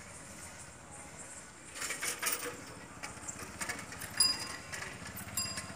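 Ground fireworks burning: a low hiss, then bursts of sharp crackling from about two seconds in, with a few brief high whistles.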